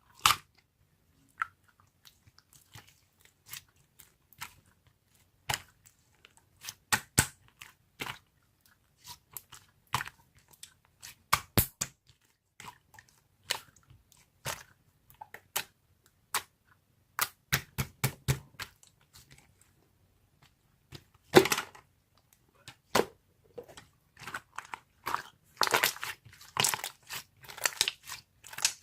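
Crisp crunching and clicking sounds at irregular intervals, like something crunchy being chewed, with a denser run of crunches near the end.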